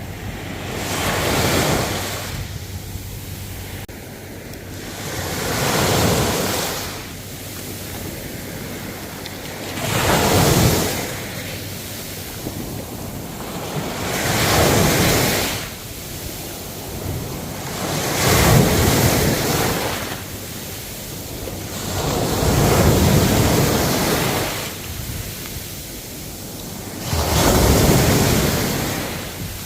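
Ocean waves breaking and washing up the shore, a rushing surge that swells and fades about every four to five seconds, seven times in all.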